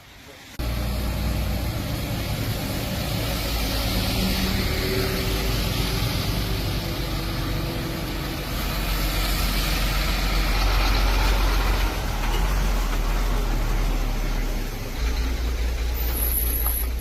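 A vehicle engine running steadily with a low, even hum, coming in abruptly about half a second in.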